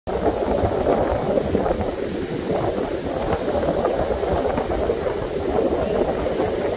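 Surf on a sandy beach: small waves breaking and washing up the shore, heard as a steady rush of noise with a low rumble underneath.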